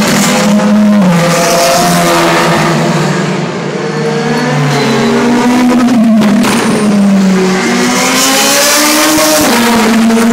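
Loud Le Mans prototype race cars passing one after another, their engines rising and falling in pitch through gear changes.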